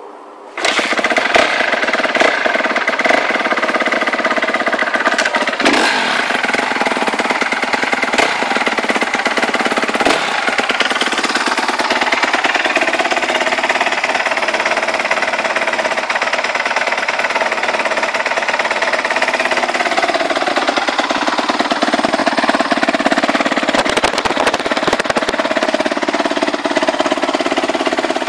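2010 Honda CRF250R's single-cylinder four-stroke engine running steadily with a rapid, even firing beat. It comes in suddenly about half a second in, and its pitch wavers only slightly.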